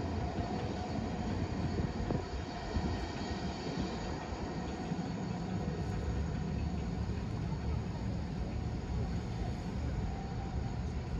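Airliner jet engines running, heard as a steady noise that holds an even level throughout.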